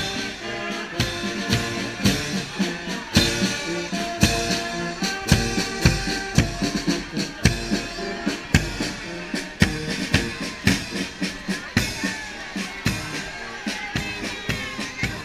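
A marching brass band plays a tune on tubas, horns and trumpets over a steady bass drum beat, about two strokes a second.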